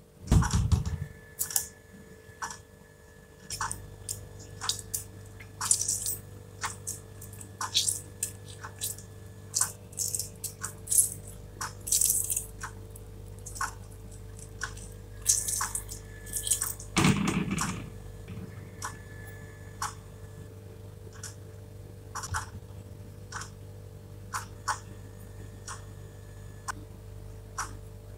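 Kitchen handling sounds: a metal fork tapping and scraping in a plastic bowl of yogurt, with short wet squishing sounds as ingredients are mixed and a lemon is squeezed in. A faint steady hum sits underneath.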